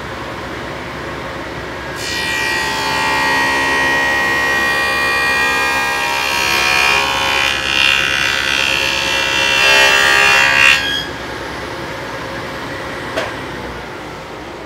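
SawStop table saw with a dado stack cutting a rabbet along the edge of a maple board. The saw runs steadily, and about two seconds in the cut starts: a loud, dense, high-pitched cutting noise that lasts about nine seconds and then stops, leaving the saw running. A light knock comes near the end.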